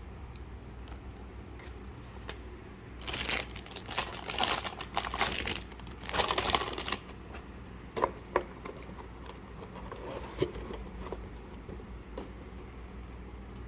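Packaging crinkling as it is handled, in two bursts, followed by a couple of light clicks about eight seconds in.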